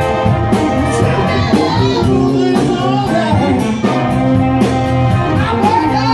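Live cover band playing a dance song: drum kit keeping a steady beat under bass, electric guitar and a singing voice, heard through a phone's microphone.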